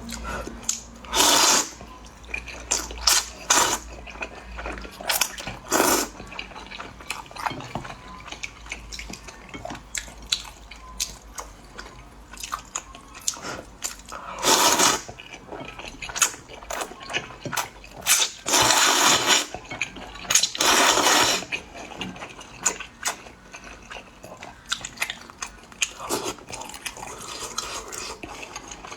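Eating thick rice noodles: about five long slurps, with chewing clicks and lip smacks in between.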